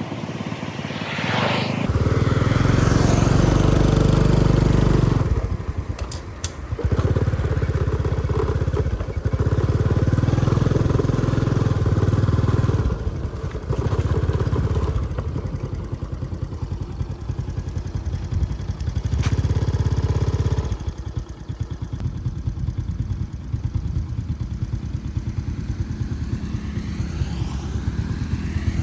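Motorbike engine running under changing throttle, swelling loud several times and easing back in between.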